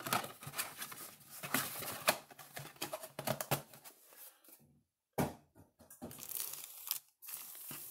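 Trading card pack wrappers and packaging crinkling and tearing as packs are opened and handled, in irregular bursts with a short pause about halfway through.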